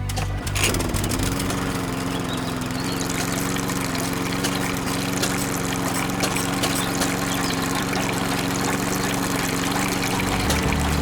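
A small DC electric motor starts about half a second in and runs with a steady hum, over a pouring, trickling water sound like a miniature water pump pushing water out.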